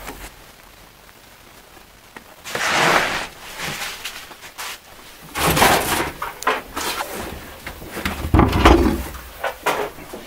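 Cardboard boxes and gear being shifted around in a van's cargo area: three bursts of scraping and rustling with scattered knocks, and a deep thud about eight seconds in.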